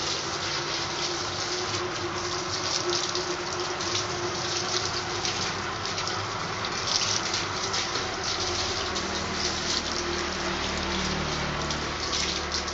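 Water gushing from a garden hose and splashing while a dog is washed, a steady rushing with a faint steady hum underneath.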